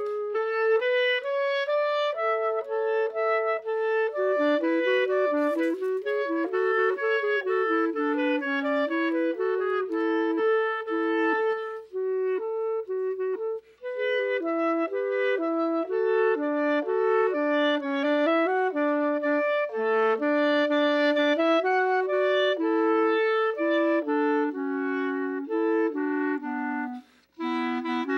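A solo wind instrument playing a single ornamented melody line in Persian music, moving in quick stepwise notes and held tones, with two short breaks for breath.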